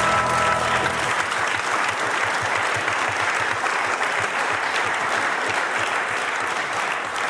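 Studio audience applauding steadily, with the end of a music sting overlapping during the first second.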